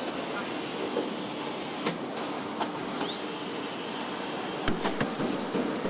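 Car assembly line noise: a steady clatter and hum of the line, with scattered sharp clicks and knocks of parts and tools. A high tone rises and then holds for a second or two, once at the start and again about three seconds in.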